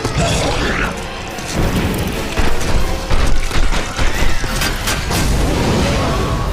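Film soundtrack: deep booms and a run of heavy clanking impacts over a low rumble, with music underneath.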